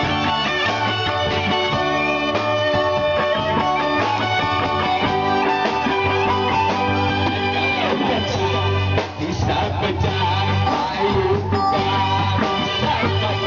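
Live rock band playing, with electric guitar over a kit drummer keeping a steady beat.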